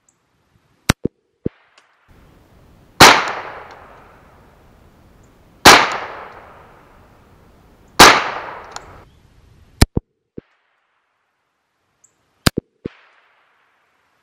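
.22LR rifle firing Winchester hollow-point rounds: three loud shots about two and a half seconds apart, each echoing away over a second or so. Several short, sharp cracks without echo come before and after them.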